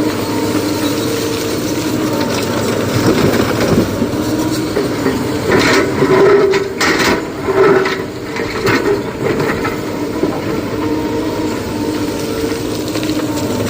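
Heavy excavator running steadily with its hydraulics whining, and a series of clattering knocks around the middle.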